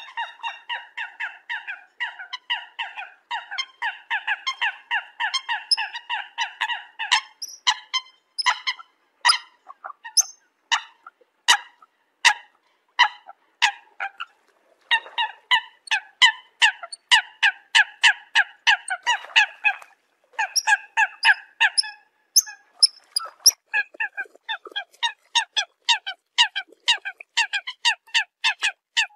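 Eurasian coot calls: a fast, unbroken series of short calls, several a second, with a stretch of sharper, higher clicking notes in the middle. These are the flock-calling calls of the coot.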